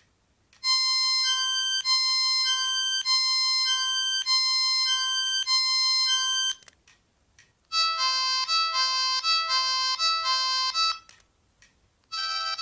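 O2 X2 mobile phone playing electronic ringtone melodies through its loudspeaker, one after another. The first tune lasts about six seconds and the second about three, each made of short electronic notes, with a brief silence between them; a third tune begins near the end.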